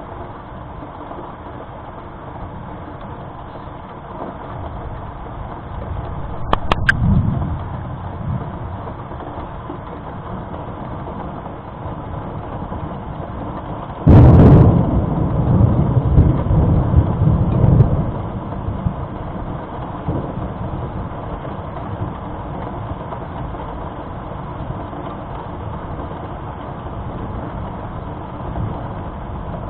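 Thunder: a low rumble with a brief crackle about six seconds in. Then a sudden, much louder thunderclap about fourteen seconds in, rumbling for some four seconds before it fades.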